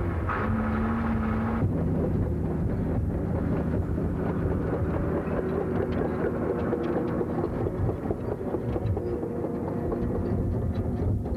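Diesel engines of a wheel loader and crawler dozer running with a steady low rumble, with a short steady tone about half a second in.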